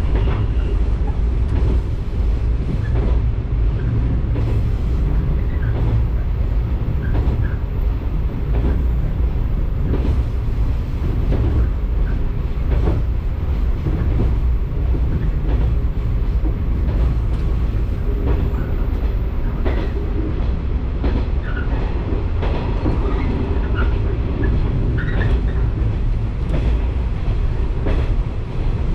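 Electric local train running along the line, heard from inside the rear cab: a steady low rumble of wheels on rail with frequent clicks and clacks over the track. Short high squeaks come now and then in the second half.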